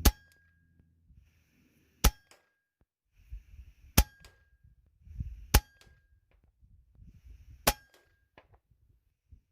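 Five shots from a Hatsan Nova .177 PCP air rifle firing 22-grain slugs, roughly two seconds apart. Each is a sharp crack followed by a brief ringing tone, with faint clicks in between.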